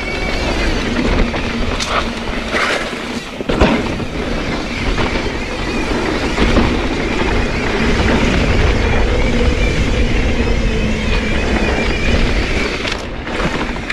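Yeti SB130 full-suspension mountain bike riding down dry dirt singletrack: tyres rumbling over the dirt and the bike rattling, with wind buffeting the handlebar-mounted microphone. A few sharp knocks mark hits from bumps.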